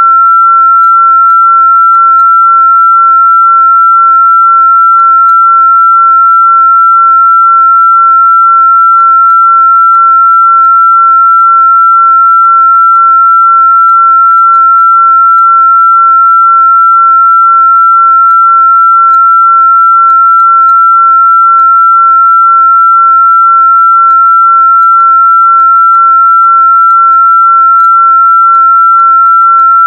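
A single steady, loud, high-pitched electronic sine tone, held at one pitch without change.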